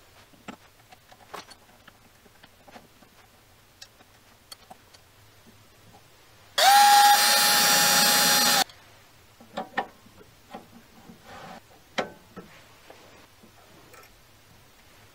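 A small cordless drill/driver runs for about two seconds at a steady high whine, cutting off sharply. It is set among light metallic clicks and taps of small steel parts being handled.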